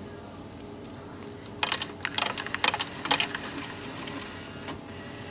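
Coins dropped into the coin slot of a checkout's cash-payment machine, clinking and rattling in a quick run of sharp strikes starting about one and a half seconds in and lasting under two seconds, over a steady machine hum.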